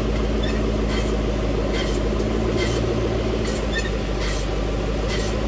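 2010 Mustang GT's 4.6-litre V8 running, driving a raised rear wheel, with a steady hum and a rhythmic swish about once a second. The rear axle is bent from a hard impact, which causes a vibration at all speeds.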